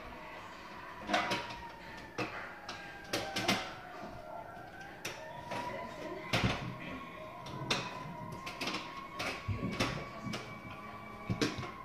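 Irregular plastic clicks and knocks as dolls and dollhouse pieces are handled and set down, over a faint continuous high tone that slowly drifts up and down in pitch.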